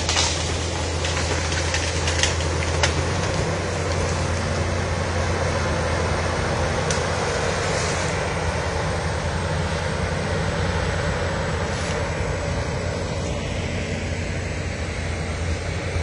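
TG 120 crawler bulldozer's diesel engine running steadily under load as it pushes earth, a low hum with a few sharp clicks in the first few seconds.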